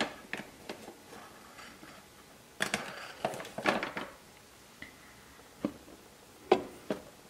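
Scattered light taps and knocks from kitchen utensil handling, with a cluster about three seconds in. The loudest knock comes near the end, as a stainless steel measuring cup knocks against the bread machine's metal pan.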